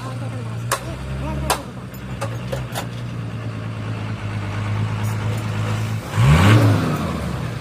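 Engine idling steadily with a few sharp clicks over it, then briefly revved about six seconds in, the pitch rising and falling back to idle.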